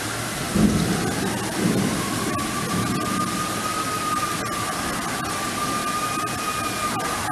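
Outdoor tornado warning siren wailing, its tone climbing about a second in, holding high, then dropping near the end. It sounds over a steady hiss, with a low rumble early on that is the loudest moment.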